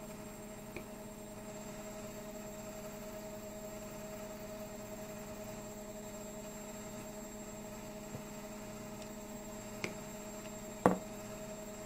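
Steady electrical hum, with a few light clicks and one sharper knock about eleven seconds in from a glue stick and paper cutouts being handled on a table.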